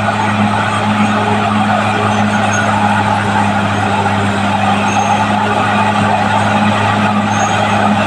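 Caterpillar D6R bulldozer's diesel engine running steadily at a constant pitch, with a strong low hum and a broad mechanical din over it.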